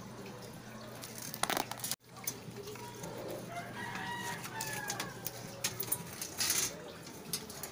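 A rooster crowing faintly, a drawn-out call near the middle, over scattered clicks and rattles from a metal LCD backlight panel being handled.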